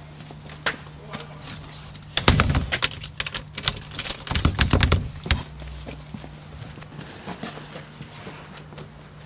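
Front door being shut and locked with a key: clicks, a jangle of keys and heavy knocks from the door and lock, the loudest about two and four seconds in. Footsteps on paving follow, over a steady low hum.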